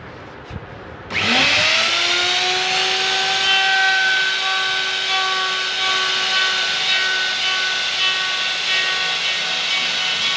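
DCK electric router switched on about a second in, its whine rising quickly as the motor spins up, then running steadily at full speed.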